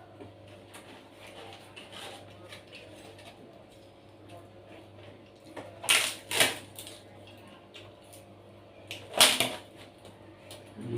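A person biting into and chewing crisp fried snacks, with two pairs of loud crunches about six and nine seconds in and small mouth clicks between them.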